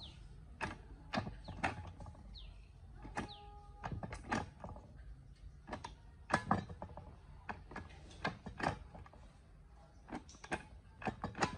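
Gear lever of a restored BMW manual gearbox being worked by hand, giving irregular metallic clicks and clunks as it is moved through the gears, along with the rubber shifter boot being pressed and seated around it.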